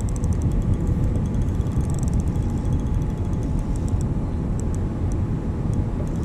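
Small boat's outboard motor running steadily under a heavy rumble of wind and water, with spells of rapid light clicking.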